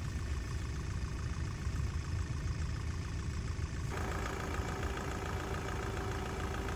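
Ford Transit van's engine idling, heard from underneath the van. About four seconds in, a heat gun starts up with a steady fan whine over the idle, blowing hot air onto the frozen gearbox shift linkage to thaw it.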